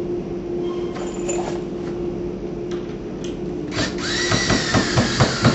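A power drill drives a screw into the side of a wooden shutter frame. About four seconds in, the motor whine rises as it spins up and then holds steady, with a quick run of clicks through it.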